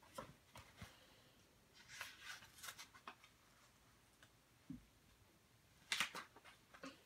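Near silence with faint rustling and soft clicks of a paperback book and bedding being handled, and one short, louder noise about six seconds in.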